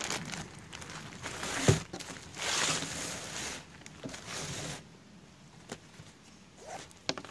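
Thin clear plastic bag crinkling and rustling in bursts as the packed trekking poles are slid out of it, with one sharp knock against the wooden table a couple of seconds in.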